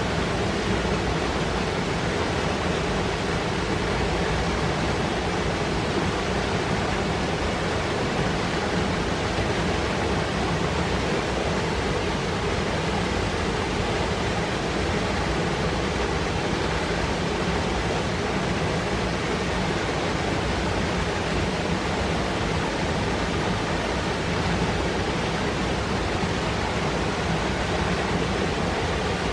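Mountain river rushing over rocks, a steady, unbroken noise of foaming white water.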